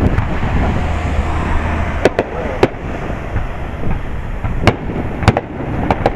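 Aerial fireworks shells bursting: a run of about seven sharp bangs at uneven intervals, over a steady rushing background noise.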